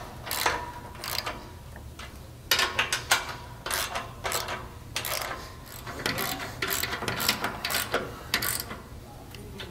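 Socket ratchet wrench clicking in short, uneven runs as the nuts on a trailer jack's mounting-bracket bolts are tightened down.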